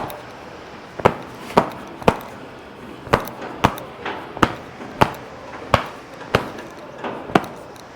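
Paper motorcycle air filter element knocked against a hard surface to shake out dust: about ten sharp knocks, roughly two a second, with a short pause about two seconds in.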